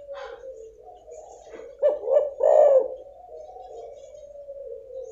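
Female spotted dove (tekukur) cooing: a low, continuous purring coo, broken about two seconds in by three loud coos in quick succession. It is a female's call of the kind used to lure silent males into calling.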